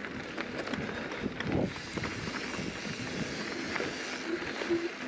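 Aluminium hardtail mountain bike riding up a dirt trail: tyres on dirt with a steady rush and a scatter of small clicks and rattles from the bike. A couple of brief low hums near the end.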